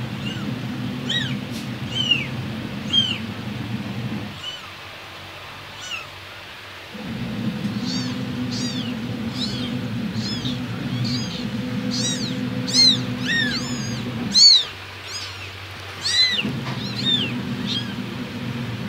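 Young kittens mewing: many short, high-pitched mews, a few at first and then many in quick succession. A steady low hum lies underneath and drops out twice.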